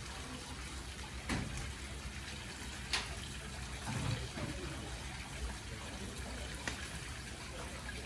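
Log fire burning in an irori sunken hearth, with a few sharp pops of crackling wood over a steady rushing background.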